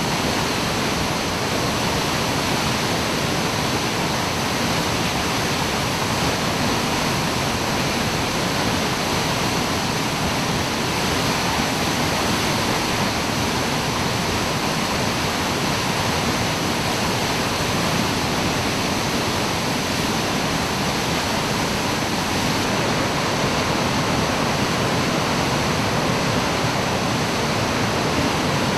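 Roar of a 30 m plunge waterfall: water falling straight down and crashing into its pool, a steady, even rush with no breaks.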